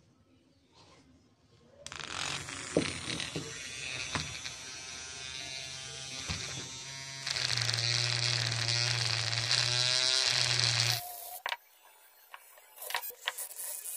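A small electric motor buzzing steadily. It switches on about two seconds in, gets louder partway through, and cuts off suddenly near the end, followed by a few clicks.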